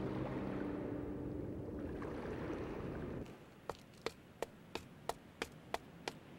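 A sustained low music chord cuts off about three seconds in. Hard-soled footsteps then follow, sharp clicks at about three steps a second.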